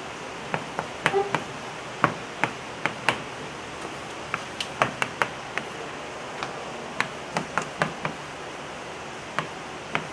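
Scattered light taps and clicks, irregular and roughly one or two a second, over a steady background hiss, as students work problems at their desks.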